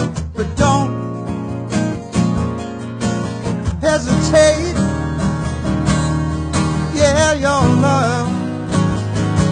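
Two acoustic guitars playing a tune together, with strummed chords.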